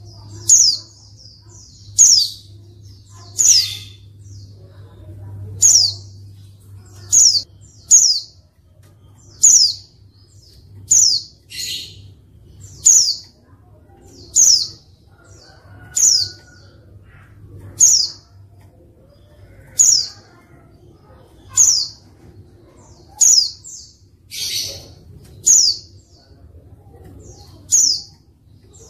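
Female white-eye (pleci) calling: a short, sharp, high, down-slurred note about every one and a half seconds, with a couple of harsher, buzzier notes mixed in. This is the call used as a lure to stir lazy male pleci into singing.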